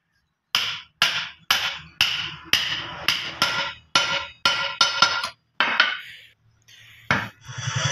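Hand hammer striking a steel gear and shaft assembly about a dozen times, roughly two blows a second, each blow ringing briefly. The blows stop about six seconds in, one more knock follows, and background music starts near the end.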